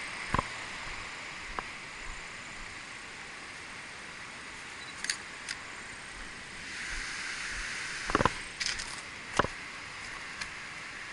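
Scattered sharp clicks and knocks from handling a DSLR camera, with a cluster of them between about eight and nine and a half seconds, over a steady high hiss.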